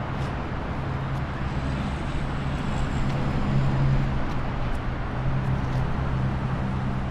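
Steady low machine hum under a broad rush of wind and open-air noise on a cruise ship's outdoor deck while the ship gets under way.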